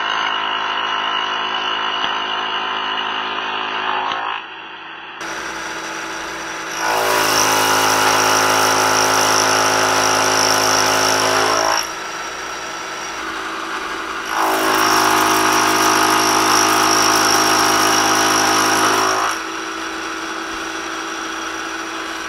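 Milling machine taking heavy cuts in aluminum with a dovetail cutter: three passes of about five seconds each, with a steady pitched hum from the cutter's teeth that swells in as the cutter enters and dies away as it leaves. The spindle runs more quietly between passes.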